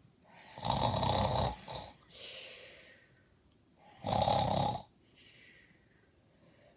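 Someone snoring twice, about three seconds apart: each is a loud snore on the in-breath followed by a softer, breathy out-breath.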